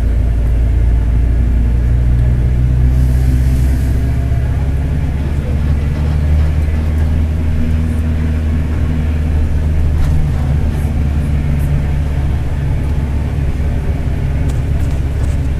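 Mercedes-Benz OF-1721 bus's diesel engine running under way, with the low rumble of its driveshaft. A brief hiss about three seconds in.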